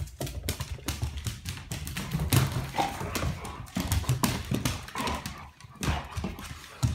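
Several dogs playing on a hardwood floor: their nails click and scrabble on the boards, mixed with short low dog noises.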